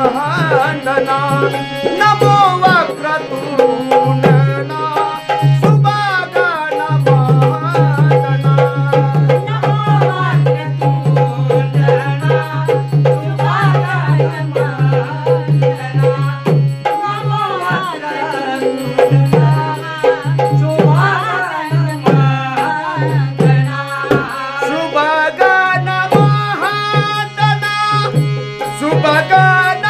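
Marathi tamasha gan, a sung invocation to Ganesh: a male lead singer and a chorus singing with harmonium accompaniment and hand-drum percussion.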